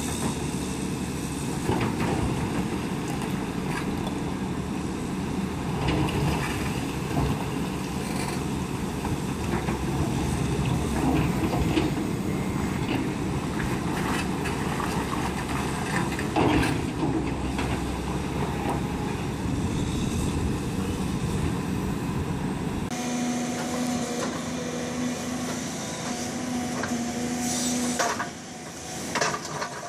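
Hydraulic crawler excavators' diesel engines and hydraulics running under load while a rotating stone grab handles large rocks, with scattered knocks of rock against the steel grab and other rock. About 23 s in, the sound changes to a smaller excavator's steadier engine hum, with a few clacks near the end.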